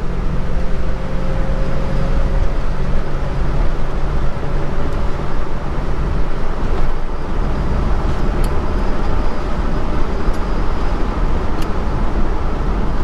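Holden HK car under way: steady engine and road noise with a low rumble. A faint, slowly rising whine fades out in the first few seconds.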